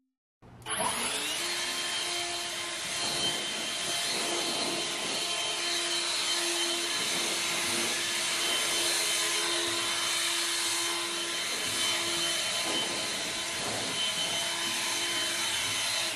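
Cordless battery leaf blower running steadily at full blast, a rushing air noise with a steady motor whine. It starts abruptly about half a second in and cuts off near the end.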